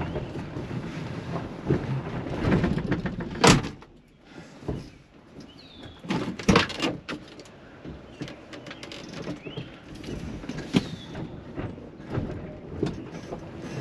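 Cab and body of a 1978 Ford F250 pickup rattling and clunking as the truck rolls slowly with the engine switched off, held only by being left in gear because the brakes have failed. Several sharp knocks, the loudest about three and a half and six and a half seconds in. Birds chirp faintly a few times.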